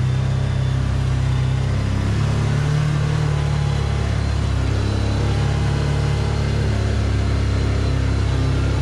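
Can-Am Commander side-by-side's V-twin engine running steadily under way, heard from inside the cab as an even drone over a wash of road and wind noise.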